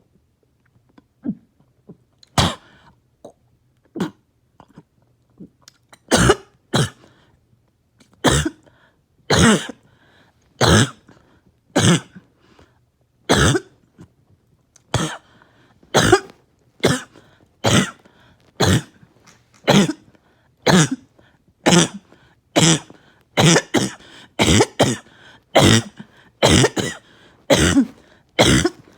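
A person's harsh, barking cough, repeated as single short coughs: a few weak ones at first, then loud ones about once a second from around six seconds in, coming faster toward the end.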